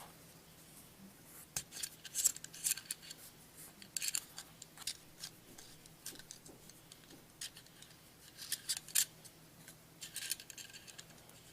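Metal threads of a Schrade tactical pen scraping and clicking as its ferrocerium-rod end is screwed on and off, in faint, irregular short rasps.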